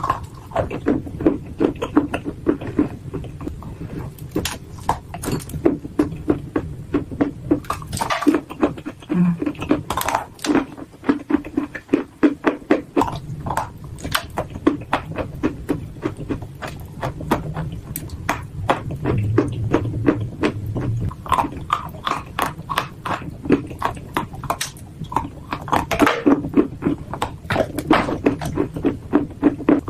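Dry clay chunks being bitten and chewed: a fast, continuous run of crunches with several louder, sharper cracks among them.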